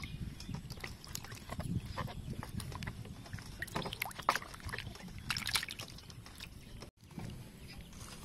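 Water splashing and sloshing in a metal basin as hands rub and turn onions, shallots and chilies in it, with many short irregular splashes; the sound drops out for an instant near the end.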